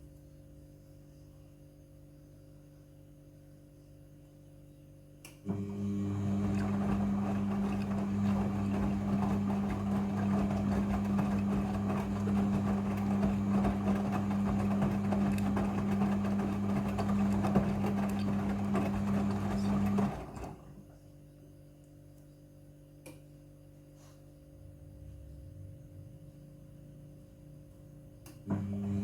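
Midea front-loading washing machine in its rinse cycle: a faint hum, then about five seconds in the drum motor starts and turns the drum for some fifteen seconds, a steady motor drone over the tumbling of wet laundry and water. It stops, pauses for several seconds, and starts again near the end, the stop-start tumbling of a rinse.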